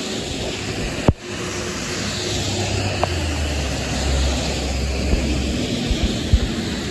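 City transit bus approaching on a flooded, rain-soaked road: a low engine rumble builds over steady hiss from tyres and spray on the wet pavement. A sharp click about a second in.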